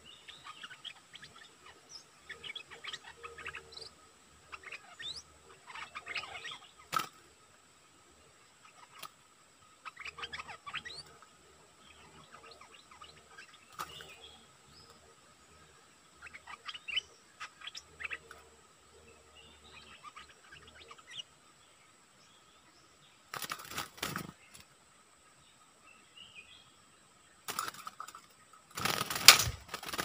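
Stripe-throated bulbuls calling in quick bursts of short, sharp chirps, a caged decoy and a wild bird answering each other. Near the end come three loud bursts of wing flapping, the last the loudest, as a bird comes down onto the trap cage.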